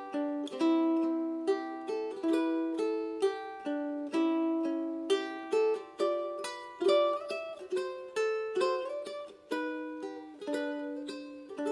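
Solo ukulele played fingerstyle: a melody of plucked notes over picked chords, each note starting crisply and left to ring and fade.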